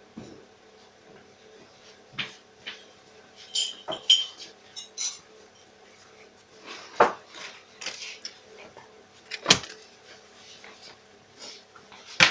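Denim jeans being handled by hand on a table: scattered rustling and brushing sweeps of the fabric, with a few knocks and light clicks, the strongest about four, seven and nine and a half seconds in.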